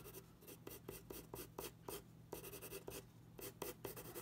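Dixon Ticonderoga No. 2 graphite pencil scratching across drawing paper in rapid, short back-and-forth shading strokes, with two brief pauses.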